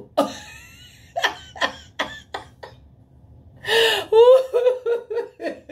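A woman laughing: a few short breathy bursts, then a louder run of quick ha-ha pulses, about five a second, from about four seconds in.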